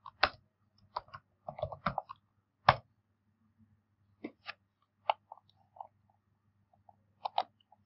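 Computer keyboard keys tapped in short uneven runs, followed by a few single mouse clicks, over a faint steady hum.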